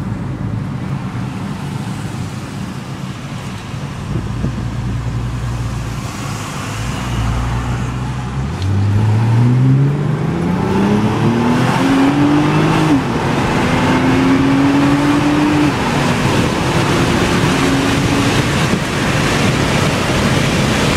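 Nissan GT-R R35's twin-turbo V6, heard from inside the cabin. It hums low and steady, then about eight seconds in goes to hard acceleration and the engine note climbs steeply in pitch. The note dips briefly about halfway through, then stays high as road and wind noise grow louder.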